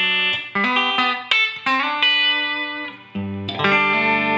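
Electric guitar (Telecaster, bridge pickup) through a DOD 280A compressor into a Fender Blues Deluxe amp, playing country chicken-picking licks: a run of plucked single notes with even sustain. About three seconds in a low chord is struck and rings on.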